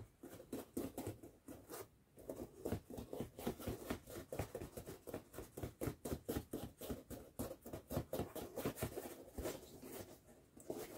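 Hands handling and pressing a foam helmet: a rapid, fairly even run of small crackles, creaks and taps, about four to five a second, from foam being squeezed and turned at its freshly glued seams.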